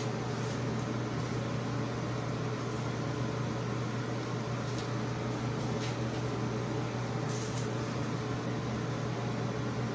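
Steady hum of an electric fan or ventilation unit, a low even drone with a constant tone under a wash of airy noise. A few faint light ticks come over it near the middle.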